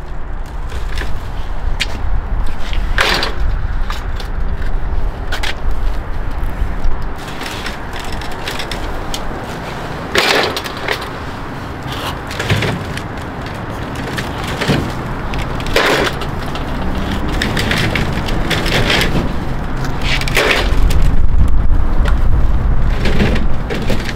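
Cases of 2-liter soda bottles being pulled from a delivery truck's side bays and set down in a stack: repeated knocks and clatters of plastic bottles and crates. A low rumble sits under the start and grows louder near the end.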